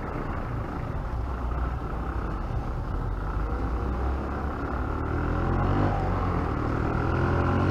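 Motorcycle engine running under road and wind noise, its pitch and loudness rising slowly over the last few seconds as it speeds up.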